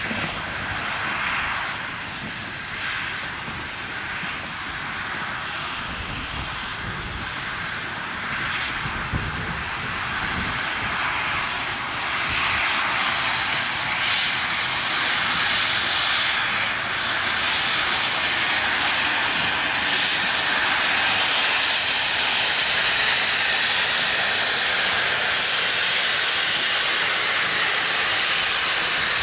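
Steam locomotive working, with slow spaced exhaust beats at first, then a loud, steady hiss of steam building from about twelve seconds in.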